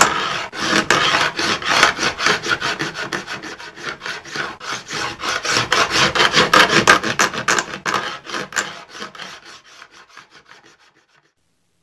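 Wood being filed by hand: quick back-and-forth scraping strokes, several a second, fading away near the end.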